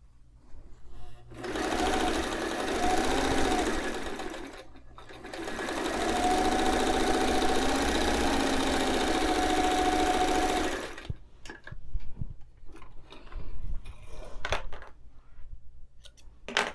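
White 173 sewing machine stitching in two steady runs, about three seconds and then about five and a half seconds, with a brief stop between. Faint clicks follow in the second half.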